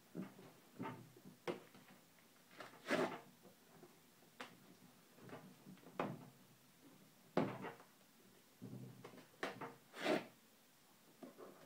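A knife slitting the packing tape on a cardboard box: irregular short scrapes and rips of blade through tape and cardboard, with light knocks and clicks from handling the box.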